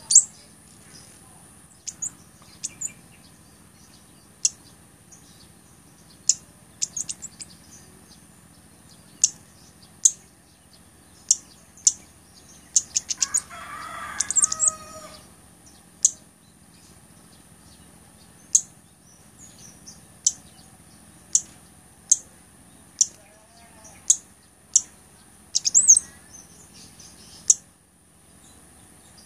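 Male blood-breasted flowerpecker (cabai gunung) giving sharp, very high single call notes about once a second. A quick rush of notes comes a little before the middle, together with a rustling flutter.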